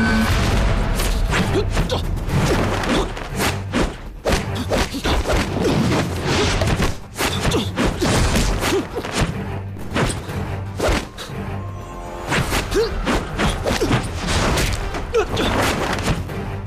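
Kung fu fight-scene soundtrack: dramatic music under a rapid, irregular run of punch and kick impact sound effects.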